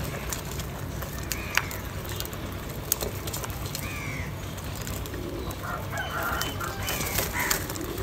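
House crows giving short, harsh caws now and then while feeding in a flock, with a few sharp ticks, the loudest about a second and a half in and near three seconds, over a steady low hum.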